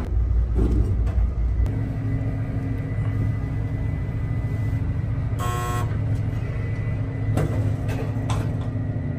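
Steady low machinery rumble on board a ship, with a constant hum. A short, bright tone sounds once, a little past halfway through.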